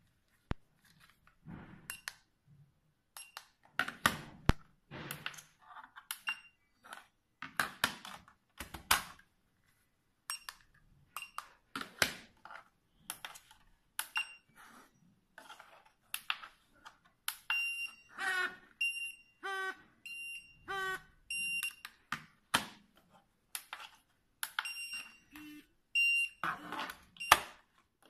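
Restaurant coaster pagers and their transmitter: plastic pagers clattering as they are lifted from and set back into the charging base, with short high electronic beeps from the keypad and paged units. Midway the beeps repeat quickly, about every 0.7 s, with a rattling buzz from a pager vibrating, and again near the end.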